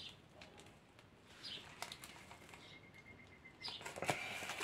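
Corrugated cardboard packaging being handled and opened around a plant: faint rustles and small scrapes that grow louder near the end.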